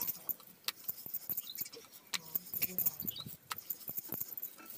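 Wooden rolling pin knocking and clicking on a wooden rolling board as a stuffed paratha is rolled out: irregular sharp clicks, several a second.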